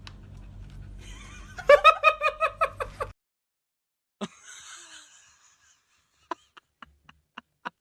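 A quick run of about eight short, high-pitched laugh-like calls, followed by a few sharp clicks near the end.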